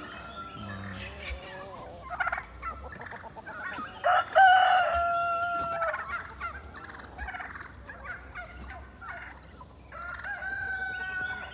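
Backyard flock: a rooster crows loudly about four seconds in and again near the end, while turkeys gobble and hens cluck in between.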